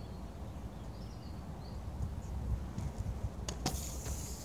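Faint birdsong over a steady low rumble. Near the end come a couple of clicks and a brief hissing scrape of inline skate wheels sliding on concrete as the skater brakes with a powerslide.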